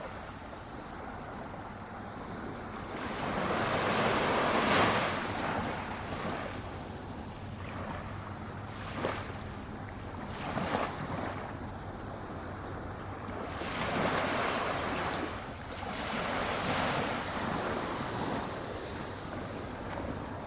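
Small waves breaking gently on a beach over a steady wash of surf, swelling and fading a few times, with a few brief sharper splashes in the middle.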